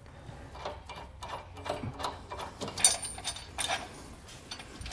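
Irregular light metallic clicks and clinks of steel hardware: offset spacer blocks and serrated flange nuts being fitted onto bracket bolts and spun on by hand. A few louder clinks come a little past the middle.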